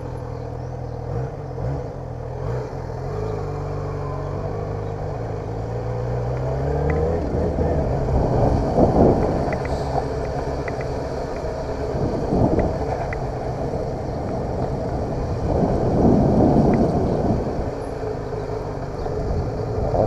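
Yamaha XJ6 motorcycle's inline-four engine running under way at low speed; its note climbs as it accelerates between about three and seven seconds in. After that a rushing noise rises over the engine and swells and fades several times.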